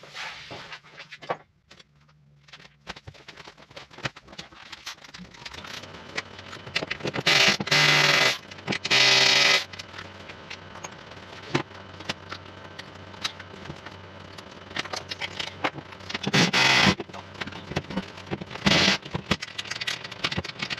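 Hand-work noise from taking small metal covers off a car's dashboard crash bar: irregular clicks, clatter and scraping of metal parts and tools, with four louder noisy bursts of half a second to a second each.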